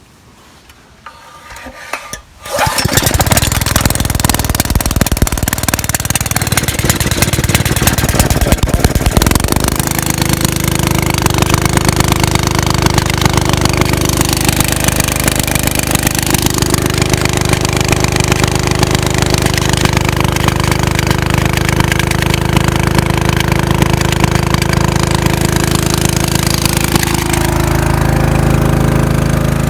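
Honda petrol engine of an old dam water pump, pull-started about two seconds in. It starts straight away and runs loudly and steadily. About ten seconds in its note changes, then it settles into an even run.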